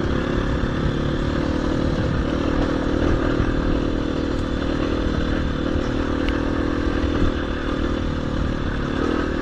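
KTM 350 EXC-F single-cylinder four-stroke enduro motorcycle engine running steadily, its pitch holding fairly even as the bike is ridden along a grassy dirt lane.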